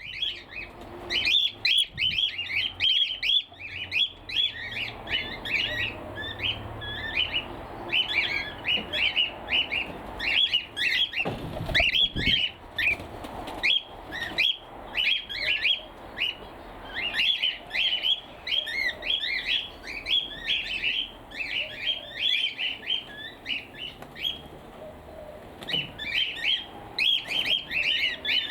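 A flock of cockatiels calling over and over in rapid, high-pitched squawks and chirps, with wing flaps as they fly about the aviary, stirred up by one bird's squawking. The calls ease off briefly near the end.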